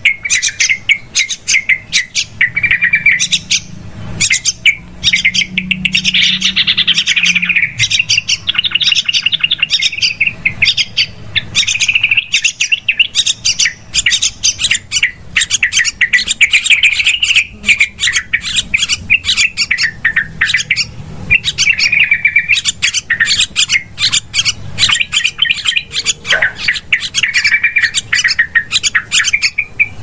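Yellow-vented bulbul calls: a very noisy, continuous stream of rapid chattering and bubbling phrases with no pauses.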